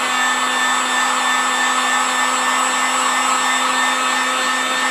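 Heat gun running steadily, a rush of blown air with a constant motor whine, drying a freshly wiped coat of PVA release agent.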